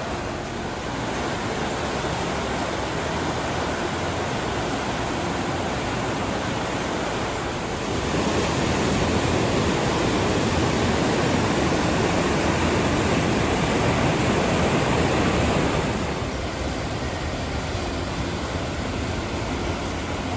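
Steady rush of a waterfall's falling water, growing louder for several seconds in the middle and then easing back.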